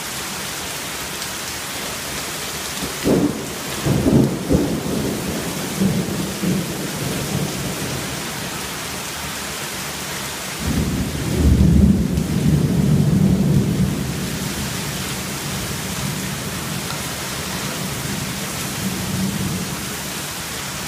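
Heavy rain falling steadily, with two rolls of thunder. The first, about three seconds in, breaks into several cracks over a few seconds. The second, louder and longer, starts about ten and a half seconds in and rumbles for about three seconds before fading back under the rain.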